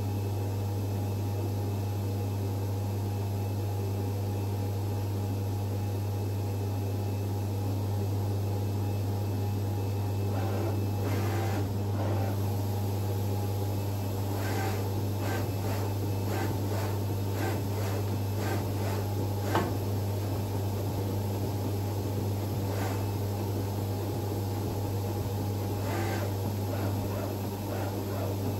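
Vulcan FC-500VC flatbed cutter running with a steady hum as it starts its job, reading the registration mark and QR code on the print. A series of short clicks runs from about ten to twenty seconds in as the tool head moves across the sheet, with two more single clicks later.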